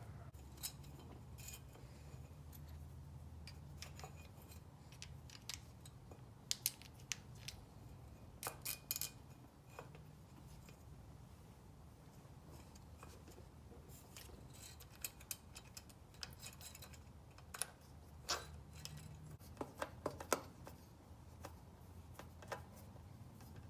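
Scattered small clicks and light metallic taps from hand work fitting parts onto a bicycle engine kit, with a low steady hum underneath.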